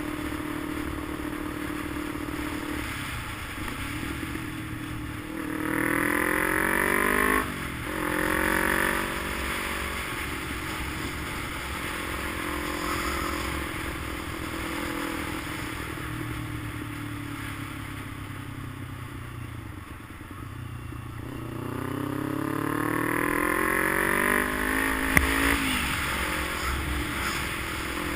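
A motor vehicle's engine running, revving up twice as it accelerates, each climb ending in a sudden drop in pitch at a gear change, once about seven seconds in and again near the end with a sharp click. In between, the engine eases off to a lower, steadier pitch.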